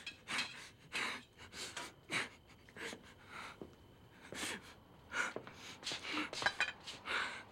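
A woman gasping in short, shaky breaths over and over, in shock after being struck in the mouth.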